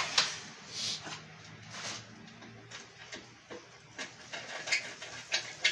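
Plastic terminal cover being fitted onto a three-phase electricity meter: scattered light clicks and knocks of plastic being handled and seated.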